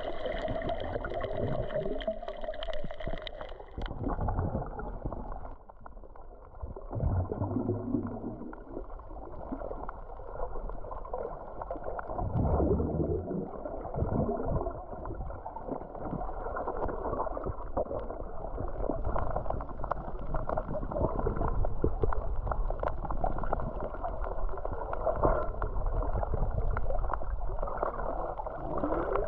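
Muffled underwater sound picked up by a camera in its waterproof housing: water rushing and gurgling with low rumbles and small clicks. About four seconds in, the higher sounds drop away and it turns duller.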